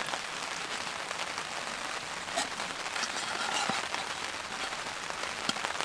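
Rain pattering steadily on a canvas tarp, with a few scattered light ticks of drops.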